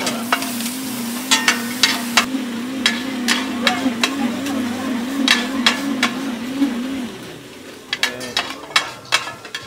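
Two metal spatulas clack and scrape against a wide steel frying pan as pad thai noodles, egg and shrimp are stir-fried, over a sizzle of hot oil that is strongest in the first two seconds. A steady, wavering hum runs underneath and stops about seven seconds in.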